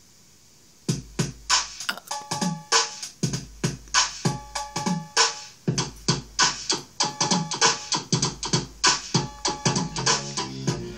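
Dance music with a steady drum beat of about two strikes a second, coming in about a second in.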